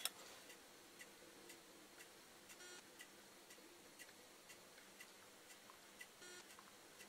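Near silence: quiet room tone with a faint, even ticking about twice a second, and two faint short beeps, one about a third of the way in and one near the end.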